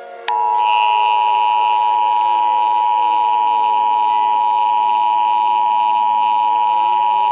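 Emergency Alert System attention signal: a steady two-tone alert tone that starts about a third of a second in and holds without change. Fainter sliding tones run underneath.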